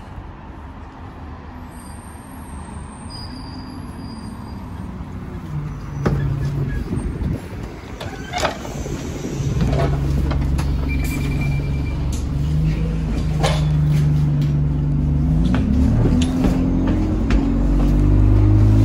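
Single-deck bus heard from inside the saloon: its engine runs quietly at first, then grows louder after a clunk about six seconds in as the bus moves off, with a few more knocks and a short beep. Near the end the engine note rises as the bus accelerates.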